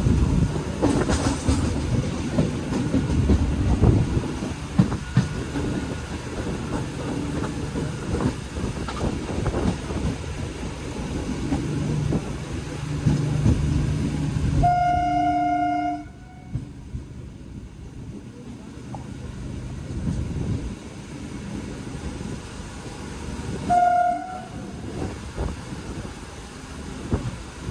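Passenger train running on the rails, with a rumble and the clatter of wheels over the rail joints. The train horn sounds twice: a blast of over a second about halfway through, then a short toot near the end. The running noise is quieter after the first blast.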